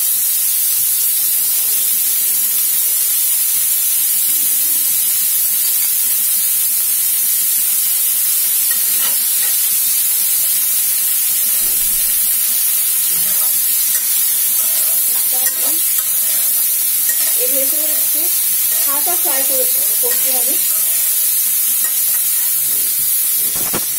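Mixed vegetables (potato, carrot, cauliflower) frying in oil and ghee in a steel karai, a steady loud sizzling hiss, while a metal spatula stirs and turns them in the pan with occasional scrapes against the steel.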